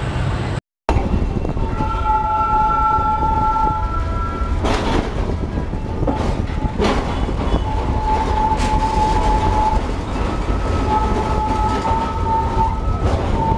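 Electric tram car running, heard from inside the passenger saloon: a steady low rumble with several sharp clacks from the wheels and track, and a whine in two pitches that comes and goes.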